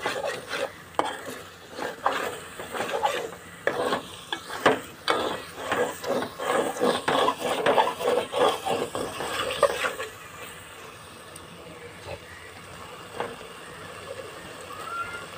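A metal spoon stirring thick potato curry in an aluminium pot, with repeated scrapes and clinks against the pot sides. About ten seconds in, the stirring stops, leaving a faint steady hiss of the simmering curry.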